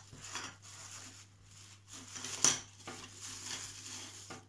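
Clear plastic wrap crinkling and rustling as a wooden fingerboard is unwrapped by hand, with a sharp knock about halfway through.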